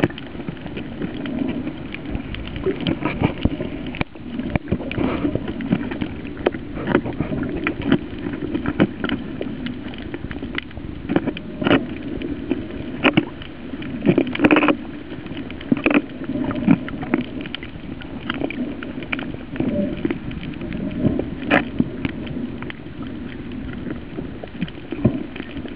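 Muffled underwater noise heard through a waterproof compact camera's body: a steady low wash with frequent irregular clicks and knocks, the strongest cluster about midway.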